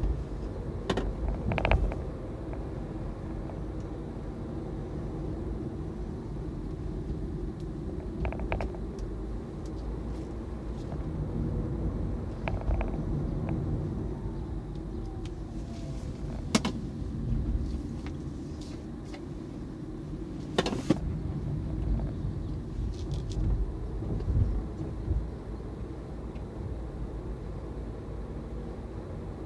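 Tyre and road noise of a Hyundai Ioniq Electric rolling downhill, heard from inside the cabin: a steady low rumble with no engine note, broken by a few sharp knocks.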